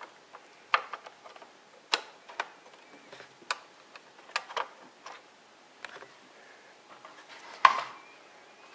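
Hard plastic parts of a Playmobil camping car toy clicking and knocking as they are handled and fitted: scattered sharp clicks about once a second, the loudest one near the end.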